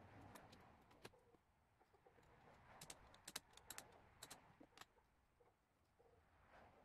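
Near silence with scattered faint sharp clicks: one about a second in, then a quick run of them between about three and five seconds.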